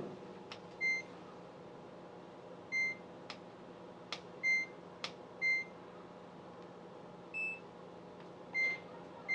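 Samsung oven's control panel beeping as its buttons are pressed to select air-fry mode and set a 10-minute cooking time: seven short beeps at irregular intervals, one of them higher-pitched. Faint clicks come between the beeps, over a steady low hum.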